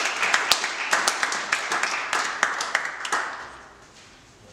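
Audience applauding with hand claps, dying away about three seconds in.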